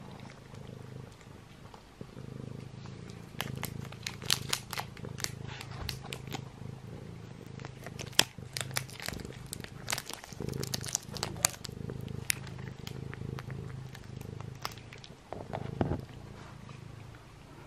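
Domestic cat purring steadily up close, with many quick wet clicks from licking and chewing a treat off the floor.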